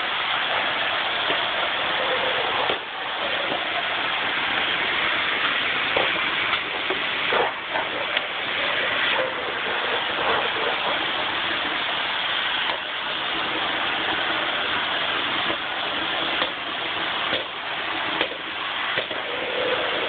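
Vacuum cleaner running steadily with an even suction hiss, broken by a few light knocks.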